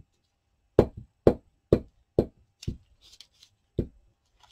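A series of six firm knocks on a hard surface, about two a second, with a short gap before the last.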